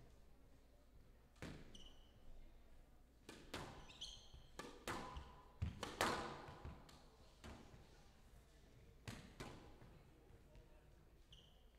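A squash ball being knocked back and forth: about a dozen sharp racket strikes and ball smacks off the walls and floor, echoing in the hall, the loudest about six seconds in. A few short high squeaks of court shoes come in between.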